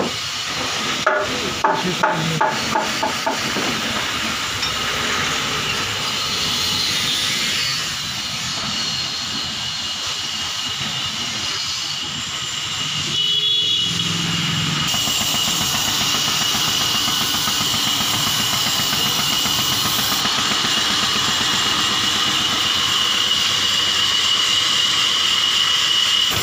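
Sawmill machinery running steadily: a loud hiss with a high whine that grows stronger over the second half. A run of sharp knocks comes in the first few seconds.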